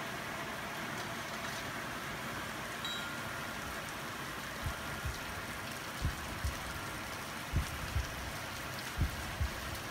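Steady, even hiss like rain. From about halfway through, soft low double thumps repeat about every second and a half.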